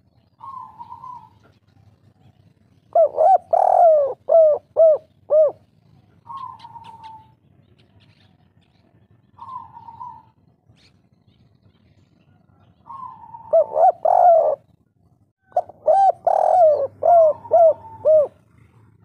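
Spotted dove (tekukur) of the 'kuk 3' call type cooing. Two loud phrases of quick rising-and-falling coos come a few seconds in and again near the end, with soft single coos in between.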